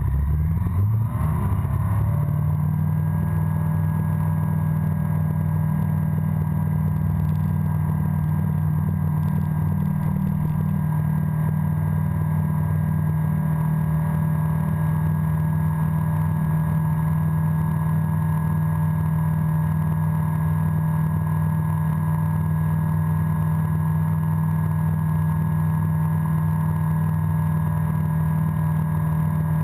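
Breezer ultralight aircraft's engine and propeller coming up to takeoff power, rising in pitch over the first two seconds, then running steadily at full throttle through the takeoff roll and climb-out.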